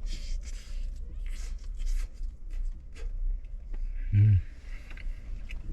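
A person eating chicken close to the microphone: a run of scratchy chewing and mouth noises with small clicks, and a brief murmur about four seconds in.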